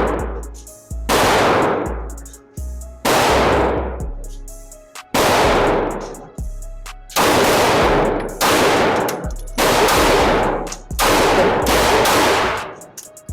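Handgun fired in slow, deliberate single shots, about nine over the stretch, spaced roughly one to two seconds apart, each shot followed by a long fading echo. Instrumental background music with a steady low bass plays underneath.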